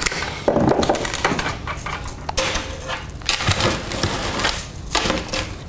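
Armature wire and hand tools being handled on a tabletop: irregular metallic clicks, rattles and scrapes as wire is pulled from a coil and tools are picked up and set down.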